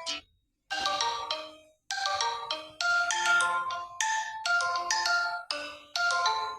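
Samsung Galaxy J5 Prime alarm tones played from the phone's own audio. One tone cuts off at the start, a short phrase sounds after a brief gap, and from about two seconds in a new melody of short ringing notes plays and repeats.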